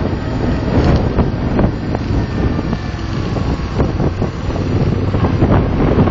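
A car being driven, heard from inside: steady engine and road rumble with wind buffeting the microphone and occasional small knocks.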